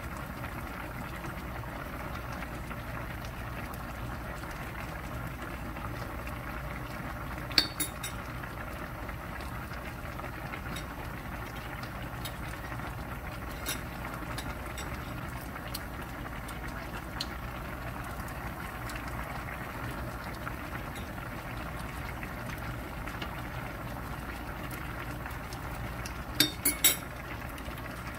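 Spicy braised chicken stew (dakbokkeumtang) boiling steadily in a wide pan, a continuous bubbling. Metal utensils clink on a ceramic plate, once sharply about a quarter of the way in and three times quickly near the end.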